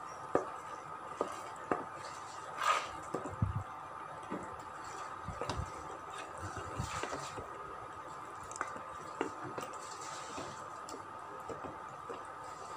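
A spatula stirring rice into a wet chicken masala in a pot: soft squelching and scraping, with scattered knocks of the spatula against the pot, over a steady faint hum.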